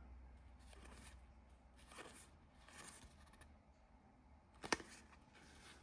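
Mostly near silence, with a few soft rustles and one short sharp click a little under five seconds in: Pokémon trading cards and booster packs being handled.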